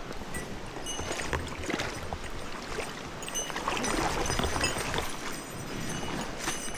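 Stream water splashing and gurgling, uneven and loudest in the middle, with scattered small clicks.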